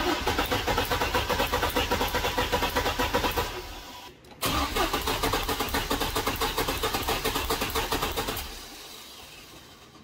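Corvette V8 cranked on its starter twice, for about three to four seconds each time, with a steady pulsing beat, winding down at the end of each run. It does not fire: the throttle is held to the floor in clear-flood mode during a compression test, with a gauge screwed into one spark plug hole.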